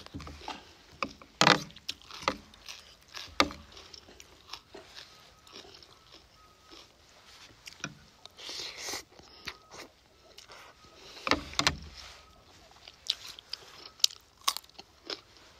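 Close-up eating sounds: crisp crunching and chewing of raw vegetables and salad, with fork and spoon clicking and scraping against a foil tray. A slurp of instant noodles comes about halfway through, and crisp bites of a raw carrot stick near the end.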